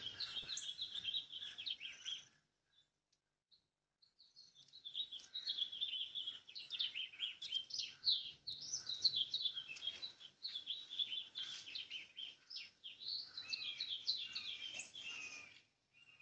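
Songbirds calling, a busy run of quick chirps and trills: about two seconds at the start, then again from about four seconds in until near the end.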